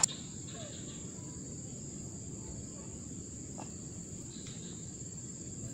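Steady high-pitched insect chorus, crickets trilling without a break, over a faint low hiss.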